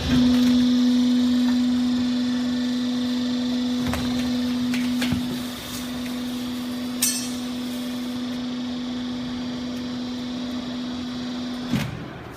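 Cardboard baler's electric hydraulic power unit running with a steady hum while the press works, with a few knocks and clicks along the way. The hum cuts off with a clunk near the end.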